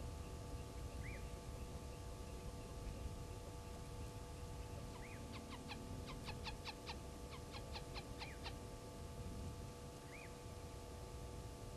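Blacksmith lapwing giving a rapid run of sharp, metallic 'tink' calls, about five a second for some three seconds in the middle. A few short rising chirps come before and after the run.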